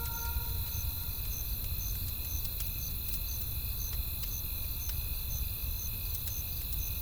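Campfire crackling with scattered sharp pops over a steady low rush of wind, with crickets chirping steadily about twice a second.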